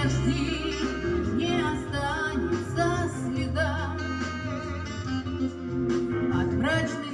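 A pop song's instrumental break: a backing track with a steady bass line under a wavering melody line that comes in short phrases.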